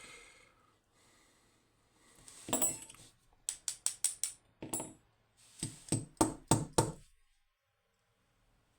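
Small metal lock parts being handled during disassembly: a run of sharp metallic clicks and taps in two bursts of several quick strikes each, then quiet near the end.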